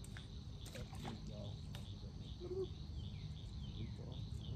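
Outdoor ambience with crickets chirring steadily and a run of short, falling bird chirps in the second half. A few faint clicks sound in the first couple of seconds over a low steady rumble.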